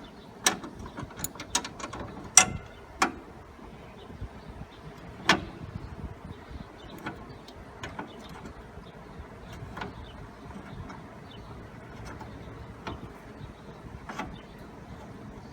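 Sharp metal clinks and taps of wrenches on the steering gear plate nuts of a lawn tractor as they are loosened. Several come close together in the first three seconds, then single ones every second or two.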